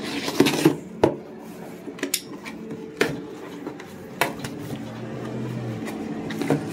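A cardboard shipping box being torn open and the packaging inside handled: a tearing rustle at the start, then scattered knocks and clatters of the contents.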